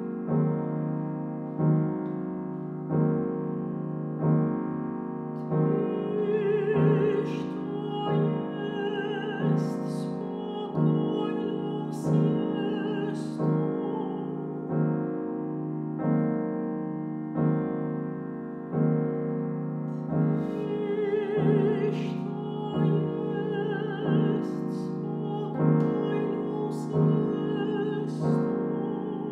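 A woman's classical voice singing an art song with vibrato, with a grand piano playing slow chords about every second and a half. The voice rests for a few seconds around the middle, leaving the piano alone.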